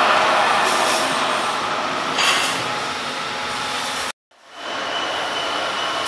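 Steady mechanical workshop noise with a few brief louder swells, cut off abruptly for a moment about four seconds in, then running on at the same level.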